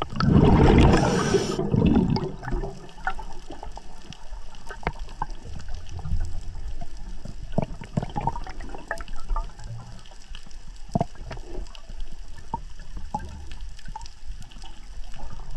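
Underwater sound: a rush of a diver's exhaled bubbles for about the first two seconds, then quieter underwater background noise with scattered short clicks.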